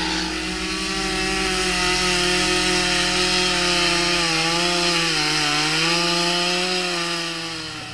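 Stihl two-stroke chainsaw running at speed while cutting into the wooden boards of a raised garden bed. Its pitch holds steady, dips briefly about five seconds in, and the sound fades near the end.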